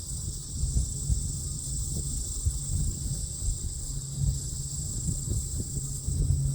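Beechcraft A36 Bonanza's six-cylinder piston engine and propeller heard at a distance as a low steady drone, growing stronger near the end, under uneven wind rumble on the microphone.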